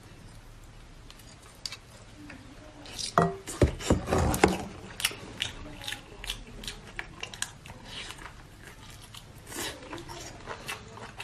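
A person eating close to the microphone: chewing with wet lip-smacking clicks and a few crunches, louder and busier for a second or two about three seconds in.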